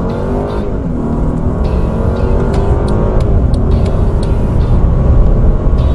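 Mercedes E400's twin-turbo V6 under full-throttle acceleration, heard from inside the cabin. The engine note climbs in pitch, drops back at the automatic gearbox's upshifts and climbs again.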